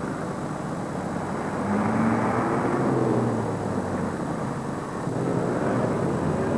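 Road traffic at a congested city junction: a steady mix of vehicle engines, with a louder engine note swelling from about one and a half seconds in and again near the end.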